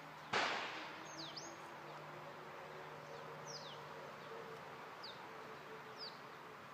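A single sharp crack about a third of a second in. After it, a flying insect buzzes steadily for a few seconds, and short falling bird chirps come now and then.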